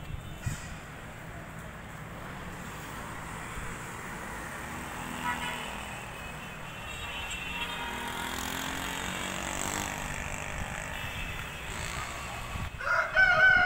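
Steady hum of distant road traffic that swells a little through the middle. Near the end a rooster starts crowing, the loudest sound.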